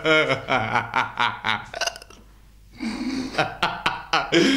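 A man gulping water from a plastic bottle to wash down a mouthful of pills, with throaty gulping and swallowing noises, while another man laughs loudly over the top.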